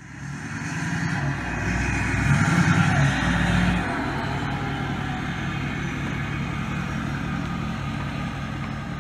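2008 Ford F-250's 6.4 L Power Stroke V8 diesel running, a steady engine note that swells for a couple of seconds about two seconds in, then holds steady.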